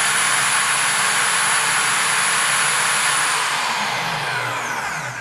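Bycon DMP-162 diamond core drill motor running free with a core bit fitted, giving a steady high-pitched whine. About three and a half seconds in it is switched off, and the whine falls in pitch as the motor and bit spin down to a stop near the end.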